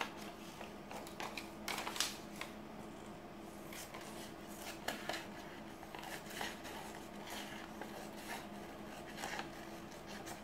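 Scissors cutting through pattern paper: a run of irregular short snips as the paper is handled and trimmed, over a steady low hum.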